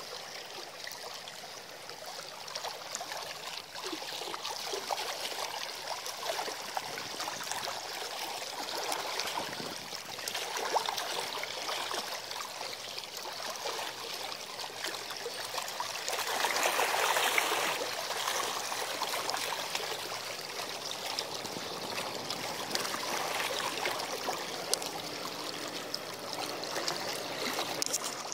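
Seawater washing and trickling against a sea embankment, swelling louder for a couple of seconds about two-thirds of the way through.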